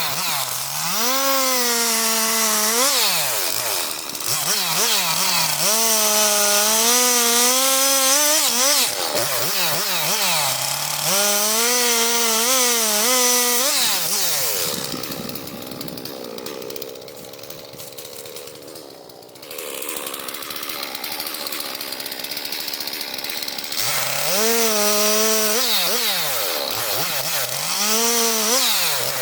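Gasoline chainsaw bucking logs into firewood lengths, its engine revving and pulling down in pitch through about five cuts, easing off quieter for several seconds in the middle.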